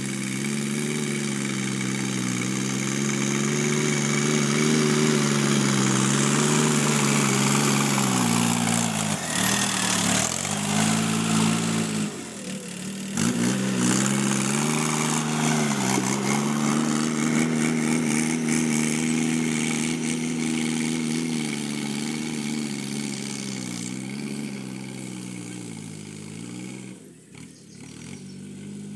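Sonalika DI 50 RX Sikander tractor's diesel engine running steadily under load while driving a rotavator through the soil. Its note sags and recovers twice near the middle as the load comes on, and dips briefly again near the end.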